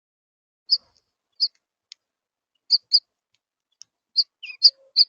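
Birds calling: short, sharp, high chirps, about a dozen, irregularly spaced and coming closer together toward the end.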